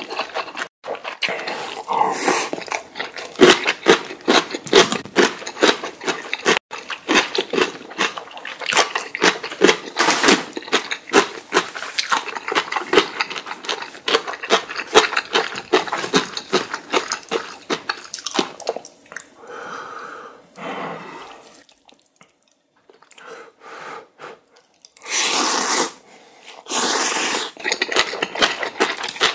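Close-miked eating sounds: steady wet chewing and mouth smacks over spicy instant noodles, with two loud slurps, each about a second long, near the end.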